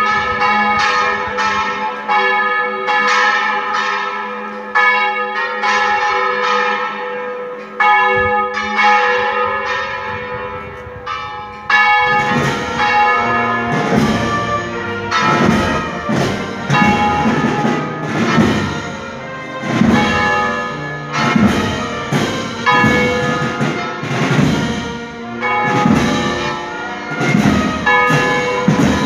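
Church tower bells swinging full circle in a general peal, strokes overlapping and ringing on. About twelve seconds in, a louder, deeper strike joins, sounding roughly once a second.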